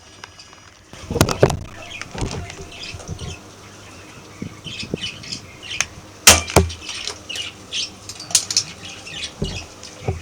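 Handling and reloading of a cheap single-shot spring airsoft BB shotgun: rustling about a second in, then scattered clicks and rattles, with two sharp snaps about six seconds in.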